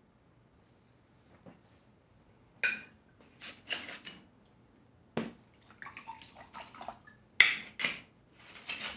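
A glass bottle being handled and a clear spirit poured from it into a cup: a few sharp clinks and knocks, a gurgling pour in the middle, then more knocks near the end, the loudest of them about three quarters of the way in.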